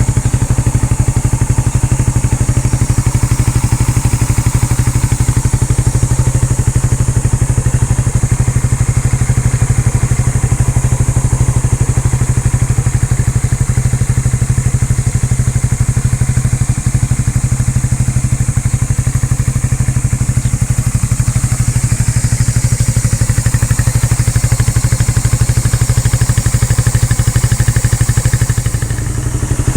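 Suzuki Raider 150 Fi's single-cylinder four-stroke engine running steadily at idle through the stock exhaust canister from a carbureted Raider R150, with a brief dip near the end.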